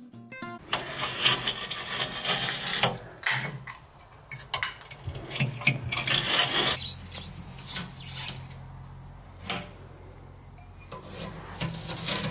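Knife blade scraping and cutting through cured silicone sealant along the glass seams of a glass tank, in a series of irregular scraping strokes that thin out for a few seconds past the middle.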